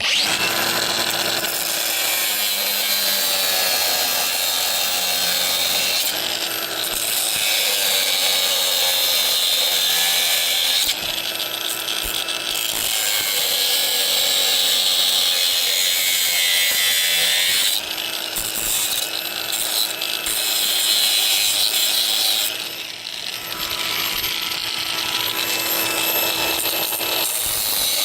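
Power tool cutting, running loud and continuously in long passes, its pitch and load shifting every few seconds, with short dips about 11, 18 and 22 seconds in.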